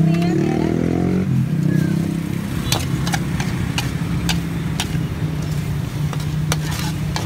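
Metal spatula clanking and scraping against a steel wok in sharp knocks as food is stir-fried, over a steady low engine hum, with an engine revving up at the very start.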